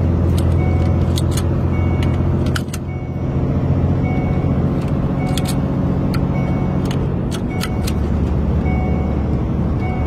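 Volvo truck's diesel engine running in the cab while driving, its note dropping a little about three quarters of the way through. A faint warning chime repeats about once a second: the seatbelt warning sounding although the belt is fastened, a fault in the belt sensor or buckle switch. Scattered sharp clicks as well.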